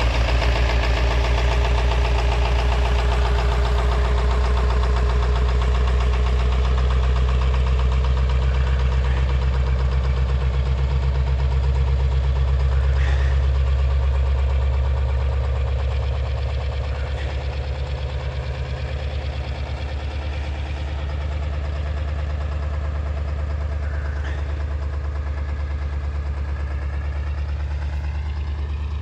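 Ford 7.3 PowerStroke turbo-diesel V8, fitted with DIY 205/80 hybrid injectors, idling steadily after a cold start at −13 °C on the block heater. It gets a little quieter about halfway through.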